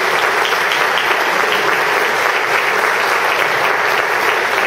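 An audience applauding steadily: many hands clapping together in a large banquet hall.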